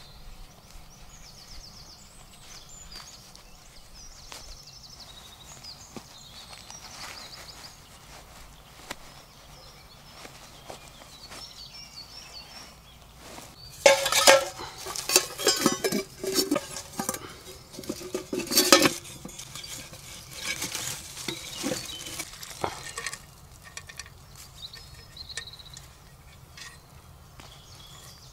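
Stainless steel storm kettle, its fire base and nested metal pots clinking and clattering against each other as they are unpacked, in a run of sharp metal knocks starting about halfway through. Faint birdsong before that.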